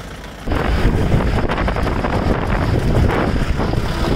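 Wind buffeting the microphone of a camera riding in a moving jeep: a loud, rumbling rush of noise that starts abruptly about half a second in.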